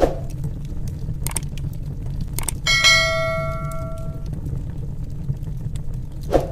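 Log fire burning, a steady low rumble with scattered crackles and pops. About three seconds in, a bell-chime sound effect rings once and fades over about a second and a half, marking the subscribe button and notification bell. Short swishes at the start and near the end.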